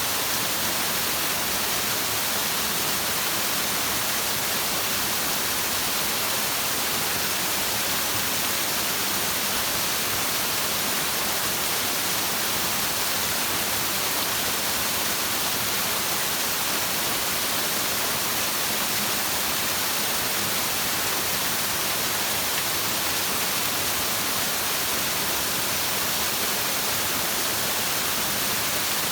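Flowing stream water as a steady, unbroken rushing hiss that does not change.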